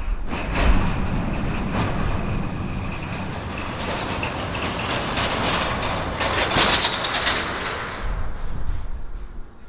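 Diesel freight locomotive running as it approaches slowly on street-running track, engine and wheel-on-rail noise in a steady rush that grows brightest about six to eight seconds in and fades near the end, with wind buffeting the microphone.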